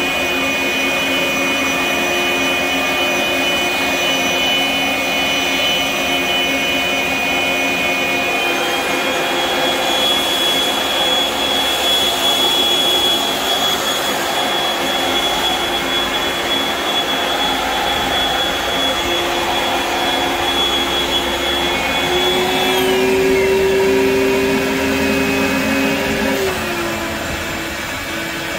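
Shop vacuum running steadily, pulling through the hose of a dustless drywall sander on low speed, with the sander's motor whining along with it. A high whine steps up in pitch about a third of the way in and falls back near the end, and a lower hum rises and drops late on.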